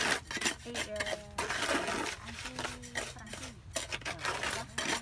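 Repeated hard clinks and scrapes on stone and cement, as the cover tile of a floor burial niche is worked into place.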